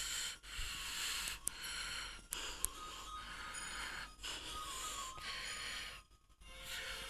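A song playing faintly from a flat-screen TV's speakers, picked up across the room with hiss. It dips briefly about six seconds in.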